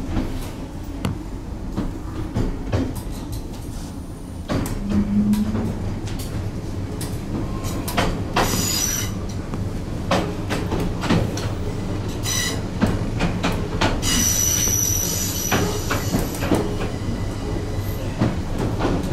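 Cabin sound of a 40-year-old Class 314 electric multiple unit on the move: a steady running rumble with the wheels clicking over rail joints. A high-pitched wheel squeal comes in about eight seconds in and again from about fourteen to sixteen seconds in as the train comes into the station.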